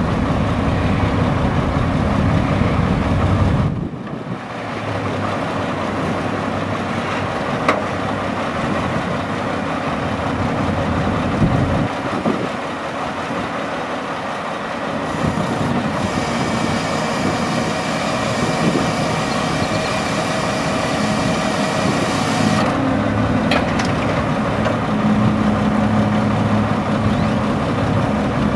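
2002 Mack RD688S roll-off truck's diesel engine running while its hydraulics fold the tarp arm down. The engine note drops in level about four seconds in, and a faint steady whine joins it for several seconds past the middle.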